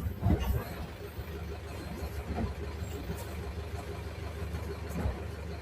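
Diesel engine of a Mercedes-Benz OF-1721 BlueTec 5 bus running with a steady low rumble. A few brief knocks sound over it, the loudest just after the start.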